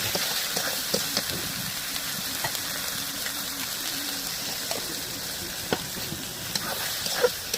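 Food sizzling steadily as it fries in a pan, with scattered clinks and scrapes of a utensil stirring it.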